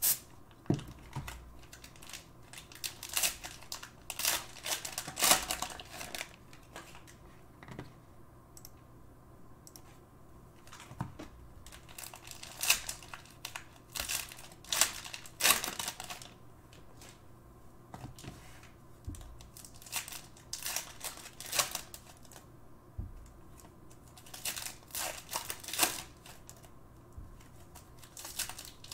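Cellophane wrappers of basketball-card cello packs being torn open and crinkled, with the cards inside being handled. Irregular crackles and rustles come and go, with short quieter gaps between them.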